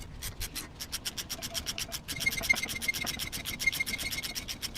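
14 mm ratcheting wrench clicking as it tightens the nut on a new rear shock absorber's shaft: a fast, even run of clicks that quickens about halfway through and picks up a light metallic ring.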